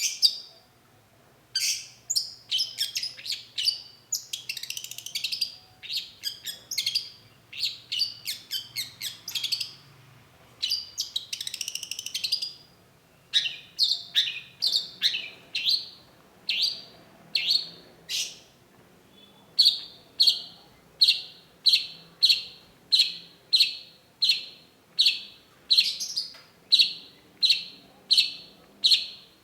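Long-tailed shrike singing: rapid, varied chattering phrases, then, from about two-thirds in, a steady run of sharp repeated notes about two a second.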